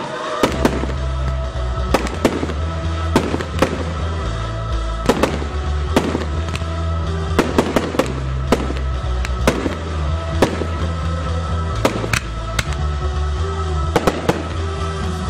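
Fireworks display: aerial shells bursting in an irregular run of sharp bangs, about two a second, over music with a heavy bass line.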